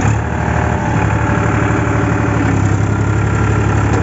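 Diesel tractor engine running steadily, heard from the driver's seat, as the tractor pulls a lowered lift disc harrow.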